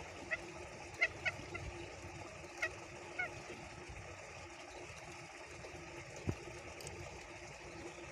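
Green junglefowl giving a string of short, sharp 'kek' calls in the first three seconds or so. This is its cackling 'ngekek' call to other junglefowl. A single low thump follows about six seconds in.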